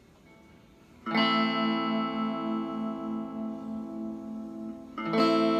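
Electric guitar played through a Marshall JCM800 valve amplifier: a chord is struck about a second in and rings for about four seconds, and a second chord is struck near the end. The repaired amp is passing the guitar through its test speaker.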